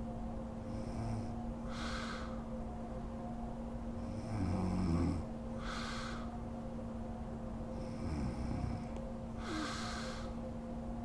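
A sleeping woman snoring: two low snores about four seconds apart, with airy breaths between them, over a steady background hum.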